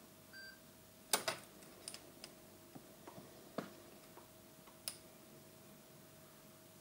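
Sharp clicks of switches and connectors being worked on a fireTEK pyrotechnic firing remote and module as they are powered up, the loudest pair about a second in, then a few lighter ticks. A faint steady tone sits underneath.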